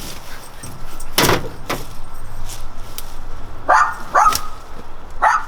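A dog barking three times in the second half, after a single sharp thump about a second in, over steady outdoor background noise.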